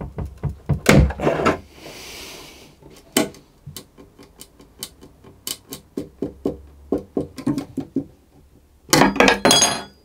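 A thin knife is worked between a cello's fingerboard and neck to break the old glue joint. It gives a string of sharp cracking clicks and knocks, with a louder, denser burst of cracks near the end as the joint gives way.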